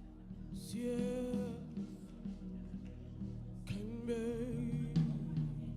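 Worship music: a steady low keyboard and bass accompaniment under two long, wavering sung vocal phrases, one about a second in and another near four seconds in.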